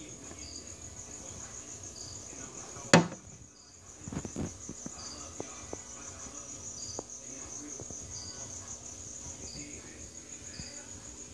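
Crickets chirping: a steady high pulsing trill with a shorter chirp every second or so. A single sharp knock sounds about three seconds in.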